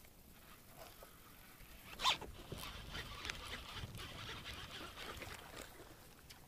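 Fishing reel being cranked quickly to wind in line, a fast rattling whir with fine ticks, starting about two seconds in just after a sharp click and stopping shortly before the end.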